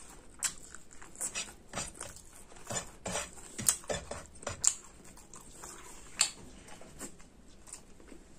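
Mouth sounds of a man eating rice and pork curry by hand: wet chewing and lip smacks, heard as an irregular run of sharp clicks, the loudest a little before the middle.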